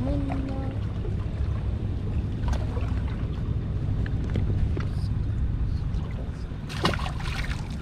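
Steady low wind rumble on the microphone with water lapping at the jetty rocks. About seven seconds in, a brief splash as the hand-held calico bass is let go back into the water.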